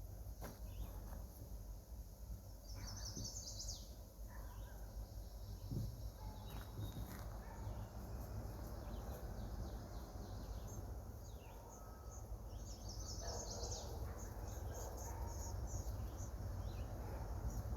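Birds chirping, with a quick run of high notes about three seconds in and another about thirteen seconds in, over a faint steady low rumble.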